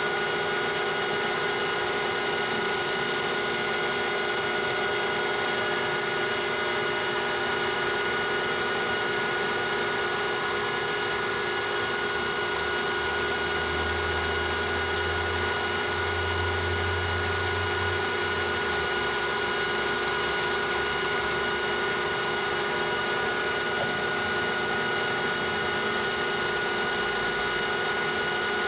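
Metal lathe running steadily with a constant whine made of several steady tones while facing the end of brass stock. A low hum swells for a few seconds around the middle.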